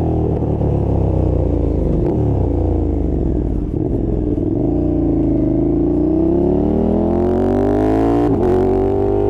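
2020 KTM 1290 Super Duke R's V-twin engine under riding. Its pitch drops as the bike slows, wavers, then climbs steadily as it accelerates through the second half, with a short sharp break about eight seconds in.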